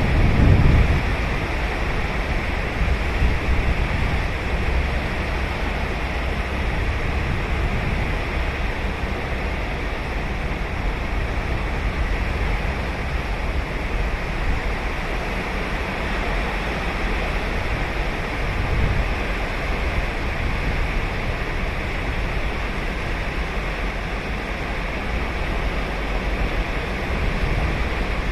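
Ocean waves breaking and washing up a beach in a steady, continuous surf, with a brief low rumble right at the start.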